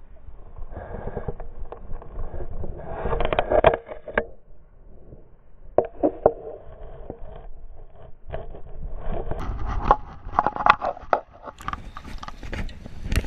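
A chest-mounted camera rubbing and knocking against clothing as the angler moves, mixed with splashing from a hooked Atlantic salmon thrashing at the surface. Near the end, water splashes as a hand goes into the river to grab the fish.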